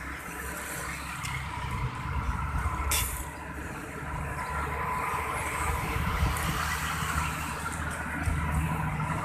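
Steady noise of road traffic going by, with a short click about three seconds in.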